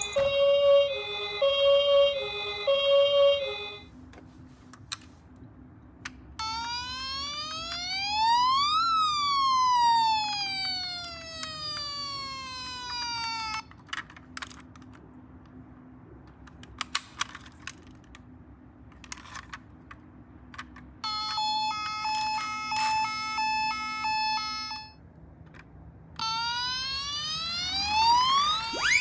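Ambulance siren sounds: a two-tone hi-lo siren alternating at first, then a wailing siren that rises and falls once. Later comes a steady electronic multi-tone pattern, and another rising wail near the end, with a few sharp clicks in between.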